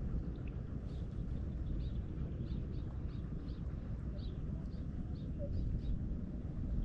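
Birds chirping, with short high chirps scattered through, several in each second, over a steady low rumble.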